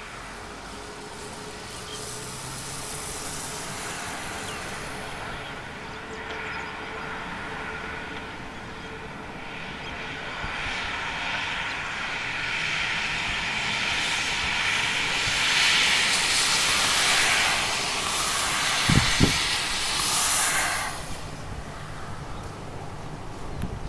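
CFM56 jet engines of a Qantas Boeing 737-800 running as it moves along the runway: a rushing hiss that swells through the middle and falls away sharply near the end. Two short low thumps of wind on the microphone come shortly before the drop.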